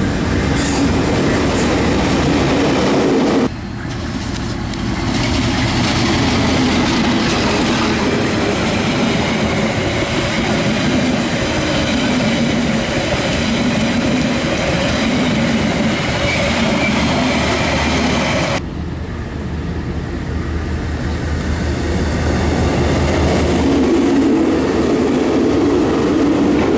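Trains passing close by in three successive cuts: a KiwiRail DL-class diesel locomotive with a container freight train, then passenger carriages, then another diesel locomotive and its freight wagons. A loud, steady rumble of engine and wheels on the rails, with the sound changing abruptly about three and a half seconds in and again about two-thirds of the way through.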